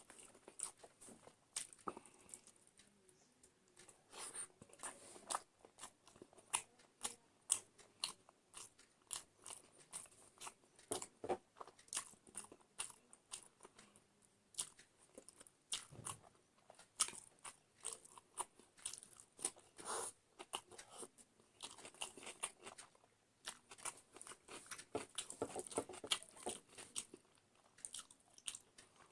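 A person chewing and biting food close to the microphone, with many short, irregular crunches throughout.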